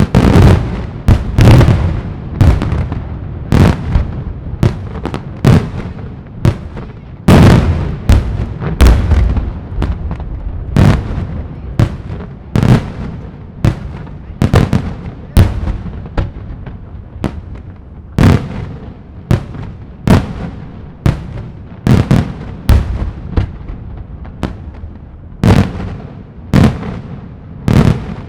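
Daylight fireworks display: a rapid, continuous barrage of loud aerial salute shells bursting, one to three sharp bangs a second, each trailing off in a short echoing rumble.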